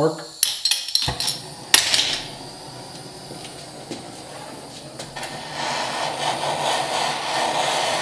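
Handheld gas torch being lit: a few sharp clicks from the spark igniter, then a sudden rush of gas catching into a steady hissing flame about a second in. The flame hiss grows louder about five and a half seconds in, as the torch is turned on a cable lug held in a vise to heat it for soldering.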